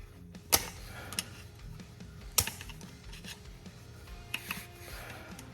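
A few sharp metallic clicks and clinks from hand tools working a broken, now-loose engine bolt, about half a second, two and a half and four and a half seconds in, over quiet background music.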